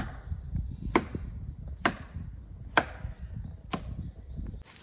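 Wood being chopped with a blade: five sharp strikes, about one a second, into fallen timber brought down by snow.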